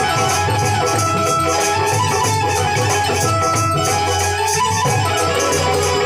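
Indian folk music: a melody played in held, stepping notes over rattling percussion that keeps a steady beat of about four strokes a second.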